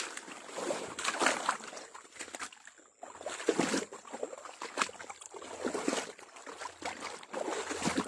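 Shallow water sloshing and splashing in irregular bursts, with trickling, as eel traps are handled and pulled through the water. There is a short pause about three seconds in.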